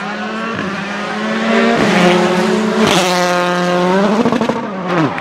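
Rally car engine held at high revs, growing louder as it comes by, with a couple of sharp cracks around two and three seconds in; its pitch drops steeply near the end as it passes.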